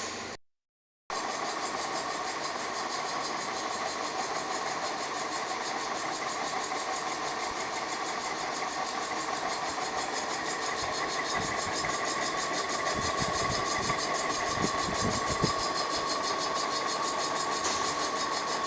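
A machine running steadily with an even whine, after a brief silence near the start, with a few low knocks well into the sound.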